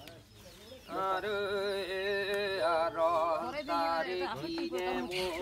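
A high voice chanting a Limbu ritual chant, starting about a second in. It is sung in long held notes that waver in pitch.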